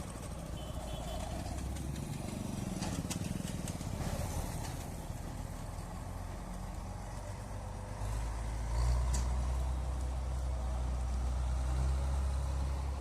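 Combine harvester's engine running steadily with a low hum, getting louder about eight seconds in.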